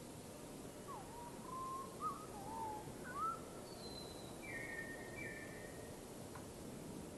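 A bird whistling a short run of curving, looping notes, then two short higher flat notes, over a faint steady hiss.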